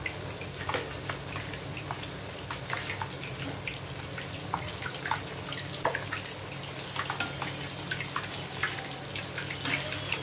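Breaded chicken lollipops deep-frying in hot oil: a steady sizzle with many scattered crackling pops. The batch is near the end of frying, crisp and golden.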